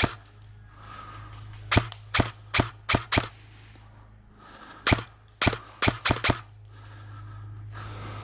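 Airsoft gun firing quick semi-automatic shots in two strings of about five, each shot a sharp crack a third of a second or so apart.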